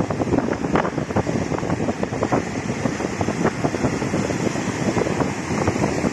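Strong wind buffeting the microphone in constant gusts, over waves breaking and washing against concrete slabs and rocks on the shore.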